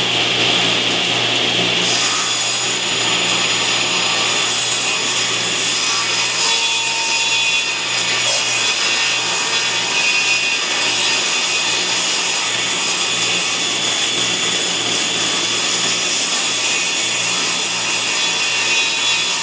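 Table saw running and ripping a thin strip off the edge of a board fed along the fence. The blade cuts steadily through the wood over the motor's even hum.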